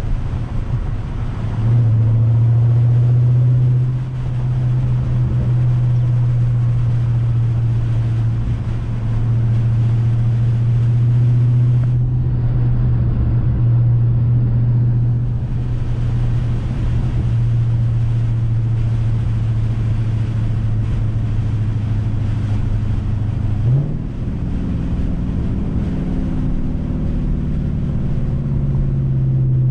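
2020 Dodge Charger Scat Pack's 6.4-litre HEMI V8 with a mid-muffler-delete exhaust, holding steady revs with a deep, constant drone. About two-thirds through, the pitch jumps briefly upward and the note then changes as the revs shift.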